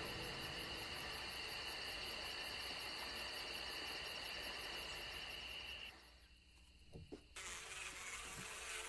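Steady high-pitched insect chirring, which cuts off about six seconds in. A couple of faint clicks and a low hiss follow.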